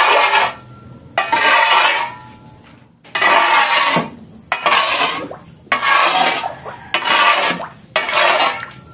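A metal shovel scraping and pushing wet flood mud across a concrete floor, in about seven strokes roughly a second apart.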